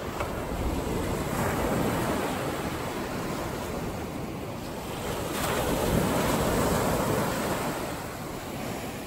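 Ocean surf breaking and washing up the beach, swelling twice: once about a second in and again, louder, past the middle.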